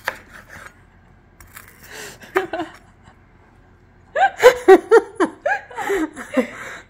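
A person laughing hard for a couple of seconds, starting about four seconds in, with softer breathy sounds before it.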